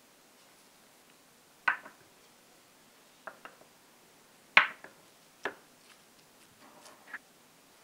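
Scattered knocks and clicks of hands-on kitchen prep work, with utensils or ingredients set on a wooden cutting board or against a bowl. There are about seven light impacts at irregular gaps, the loudest a sharp knock about four and a half seconds in, and a little rustling near the end.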